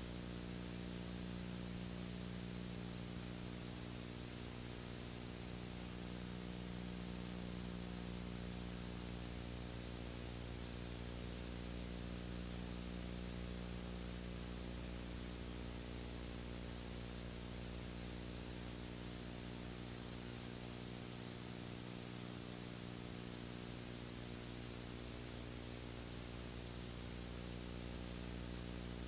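Steady hiss with an electrical hum underneath, unchanging: recording or transfer noise with no other sound.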